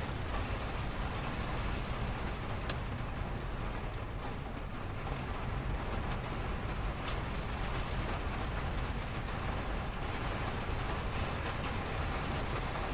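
Steady rain falling, over a low, steady rumble of freeway traffic. A couple of sharp single drop ticks stand out, one about three seconds in and one about seven seconds in.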